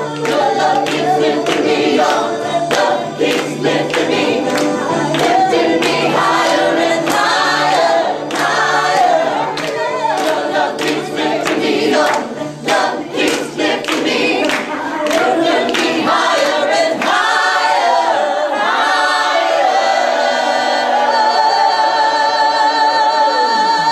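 A small mixed group of men and women singing together, clapping in rhythm through the first part, then holding one long final chord that cuts off near the end.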